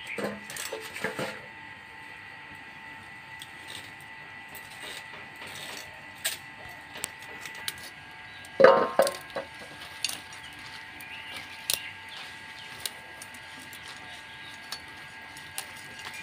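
Stem amaranth stalks being cut against a bonti's fixed blade, giving scattered small clicks and snaps. There is one brief louder sound about nine seconds in.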